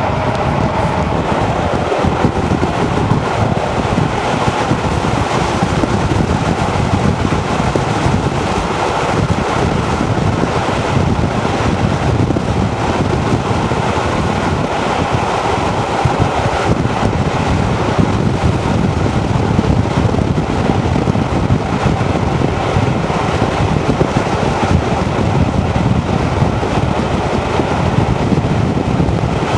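Steady wind rush buffeting the microphone at an open carriage window of a moving train, over the train's running noise. The train is hauled by Class 52 'Western' diesel-hydraulic locomotive D1015 Western Champion, which has twin Maybach diesel engines.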